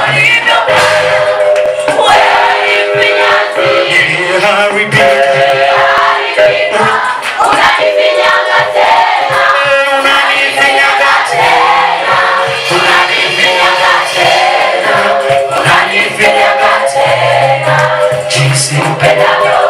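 Choir singing a gospel praise song in harmony, with several voices holding and moving between sustained notes.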